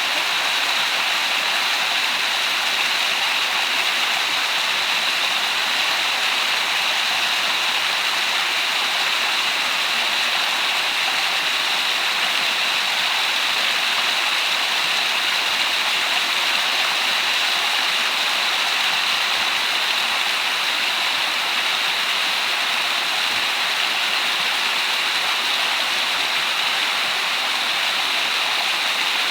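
Water pouring steadily down a two-step, 10 m curtain-like waterfall, a constant even rush of falling water.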